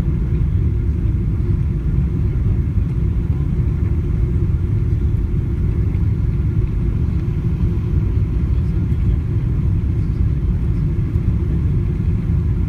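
Steady low rumble of a Boeing 777-200's engines and airflow heard inside the passenger cabin during the approach.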